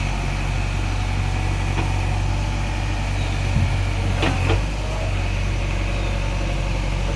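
JCB 3DX backhoe loader's diesel engine running steadily, with a few short knocks about three and a half to four and a half seconds in.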